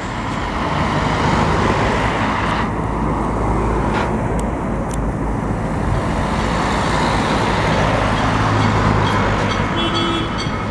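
Road traffic at a junction: bus and car engines running in slow-moving traffic, with a steady low engine hum.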